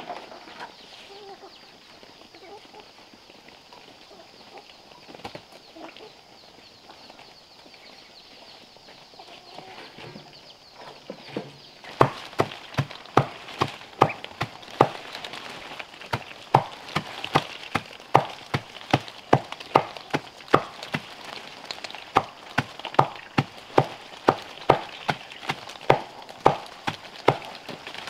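Steady chopping, sharp even knocks about two a second, as greens are chopped for farm fowl. It starts about twelve seconds in, after a stretch of faint fowl calls.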